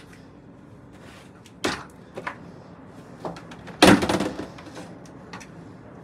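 A wire laundry cart and a plastic laundry basket being handled: several separate knocks and rattles, the loudest a bang with a short ringing tail about four seconds in.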